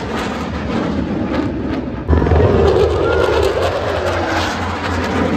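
Jet fighter engine noise during an airshow flying display. About two seconds in, the sound jumps abruptly louder and deeper, and a faint tone then slides slowly down in pitch as the jet passes.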